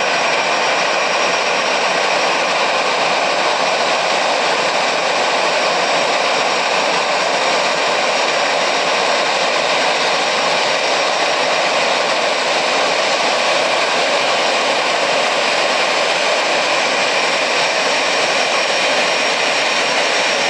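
Airbus A320's twin jet engines running at idle thrust while it taxis to its stand: a steady rush with high whining tones held level throughout.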